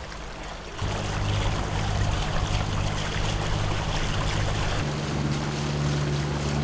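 Steady low hum of the catamaran's engine under wind and rushing water; the hum jumps to a higher pitch about five seconds in.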